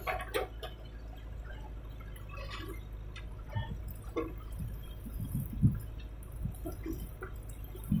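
Backhoe loader's diesel engine running as a low steady drone while the bucket digs soil, with scattered faint clicks and knocks.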